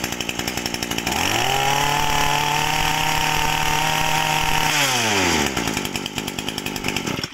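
Ryobi 26 cc two-stroke brush cutter engine idling, then revved to high speed and held there for about three and a half seconds, running strong. It drops back to idle and stops at the very end.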